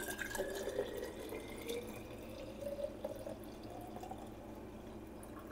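Milky lactic acid bacteria (LAB) serum poured in a steady stream from a plastic bowl into a glass bottle. The pitch of the filling rises as the bottle fills.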